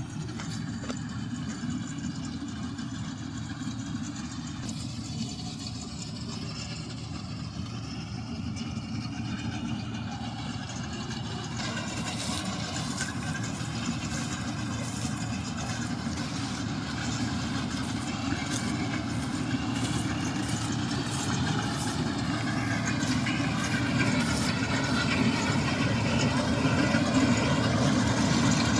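Combine harvester running steadily while cutting paddy, its engine noise slowly getting louder. From about halfway there is more rattling from the machinery.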